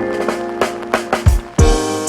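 Background music: held keyboard chords, with bass drum and cymbal hits coming in about a second in.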